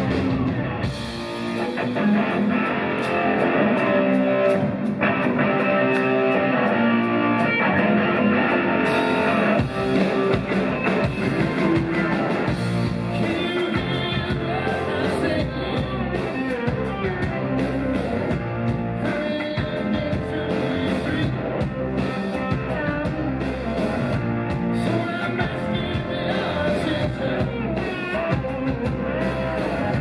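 Live rock band playing: electric guitars, bass guitar, keyboards and drums. The deep bass is thin for the first several seconds, and the full band with bass and drums comes in strongly about nine seconds in.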